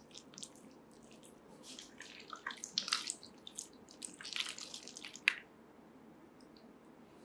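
Soft, wet reclaimed clay squelching as a hand digs into it and scoops it out of a bucket: short wet squishes in two clusters, about two seconds in and about four to five seconds in.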